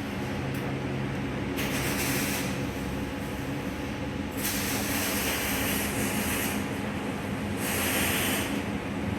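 LPG gas hissing through an opened gate valve in three spurts, about a second and a half in, a longer one from about four and a half to six and a half seconds, and a short one near eight seconds, as the valve is set. A steady low hum runs underneath.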